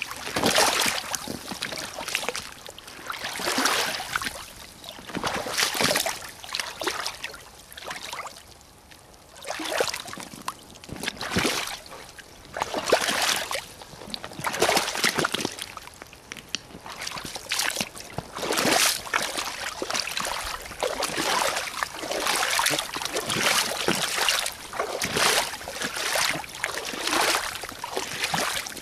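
Tall Red Bogatyr rubber boots wading through shallow flowing floodwater, sloshing and splashing with each step, about one step every second or so.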